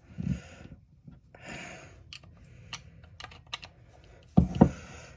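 Scattered light clicks and taps of screwdrivers being worked against the stuck, stripped screws of an old carburetor, with a couple of short hisses early on and a louder knock about four and a half seconds in.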